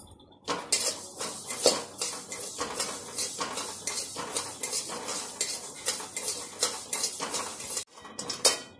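A spatula scraping and stirring mustard seeds as they dry-roast in a kadhai without oil: a fast run of scraping strokes that breaks off suddenly near the end, then starts again.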